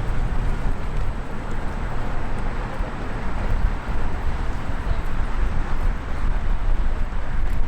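Continuous rushing noise with a heavy, uneven low rumble: wind buffeting the on-camera microphone during an electric unicycle ride, over city background noise.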